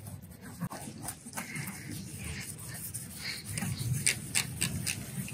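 Toothbrush scrubbing a wet, soapy plastic headlight lens in quick strokes, about three a second in the second half, mixed with squirts from a trigger spray bottle.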